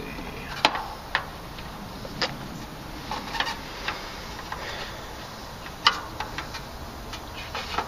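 Scattered light clicks and taps, about a dozen, two of them louder at about two-thirds of a second and about six seconds in. They come from a screw on a cordless impact driver's bit being fitted against the sheet metal of an air-conditioner condenser. The driver's motor is not run.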